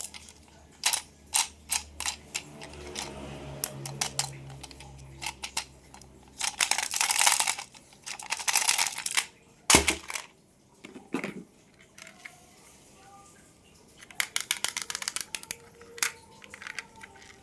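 Close-miked handling of plastic toy cars and their packaging: a run of sharp clicks and taps, two rustling bursts about halfway through, and a heavier knock about ten seconds in.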